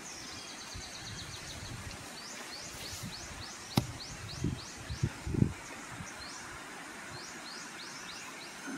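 Young coconuts knocked from a tall coconut palm landing on the ground with a few dull thuds, just after a single sharp crack about four seconds in. Short high rising chirps repeat throughout.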